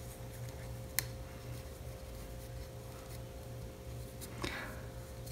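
Faint handling sounds of fingers pressing and smoothing fabric ribbon onto a plastic headband, with one sharp click about a second in, over a low steady hum.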